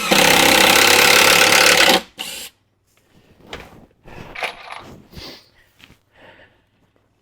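Power drill driving a screw into wood for about two seconds, followed by a short second burst of the drill, then scattered light knocks and handling noises.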